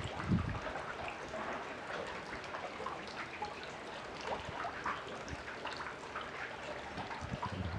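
Small waves lapping and splashing against a dock: a steady, irregular trickling patter of water. There is a brief low thump just after the start.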